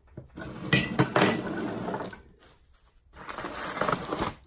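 Ceramic kitchen canisters and lids clinking against each other as they are handled and set down, followed after a short pause by a spell of rustling.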